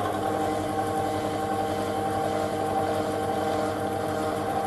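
Small bench metal lathe running steadily, turning an armature held on a cup dead centre in the tailstock: a steady hum with several held tones.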